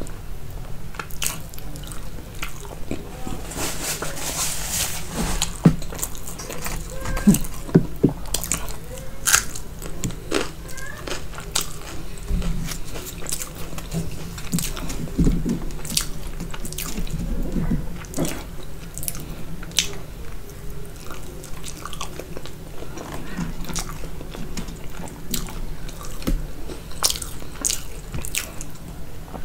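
Close-miked chewing and biting of soft flatbread dipped in curry, with wet mouth sounds and many small clicks and smacks; a few louder bites come between about six and nine seconds in.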